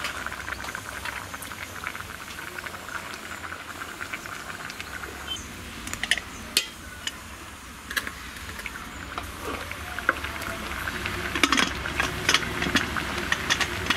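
A pot bubbling steadily on the burner, with a few sharp metal clinks about six seconds in and a cluster near the end as an aluminium pressure cooker lid is handled and fitted.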